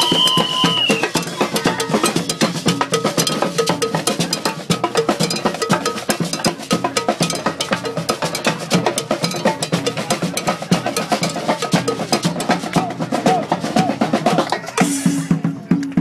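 Street band's drum section playing a fast, busy groove of snare drum, bass drum and cowbell, with a held high note fading out in the first second. A cymbal crash comes near the end, followed by a low held note.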